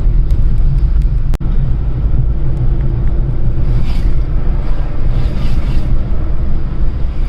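Steady low rumble of a road vehicle in motion, broken by a brief dropout about a second and a half in.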